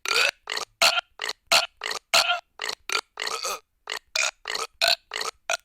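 Burps in quick succession, about three a second, each a short pitched belch with silence between. A couple a little past the middle run slightly longer.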